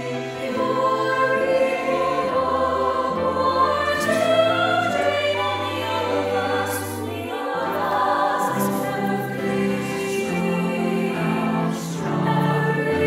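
A mixed high school choir singing a slow piece in sustained harmony, assembled from separately recorded voices into a virtual choir mix.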